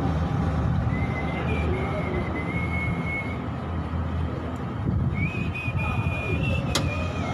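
A person whistling a tune in two short phrases over a steady low rumble, with one sharp click near the end.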